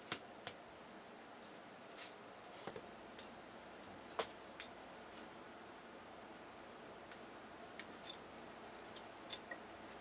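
Hobby knife cutting and scoring thin styrene plastic sheet on a cutting mat: irregular sharp little clicks and scrapes of the blade, the loudest about half a second in and near the end, over a faint steady hiss.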